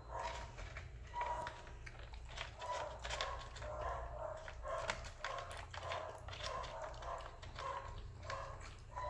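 Cats eating dry kibble from a bowl, crunching, while a kitten makes short mewing sounds over and over, about two a second, as it eats.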